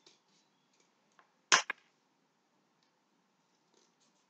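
Scissors snipping through toilet-roll cardboard: one sharp snip about a second and a half in, with a smaller click right after it.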